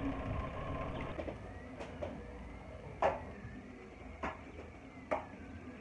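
3D printer's stepper motors whining faintly, the pitch gliding slowly up and down as the print head moves. Four sharp knocks about a second apart sound over it.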